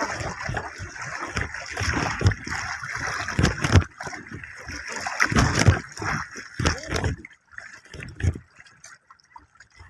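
A hooked fish splashing and thrashing at the surface beside a small wooden outrigger canoe as it is hauled in by hand, with water sloshing irregularly. The splashing dies down about seven seconds in.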